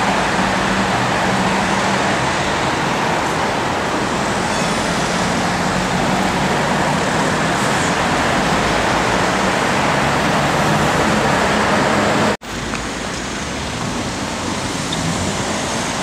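Steady city street traffic noise, an even rush with no single vehicle standing out. It cuts out for an instant about twelve seconds in, then carries on a little quieter.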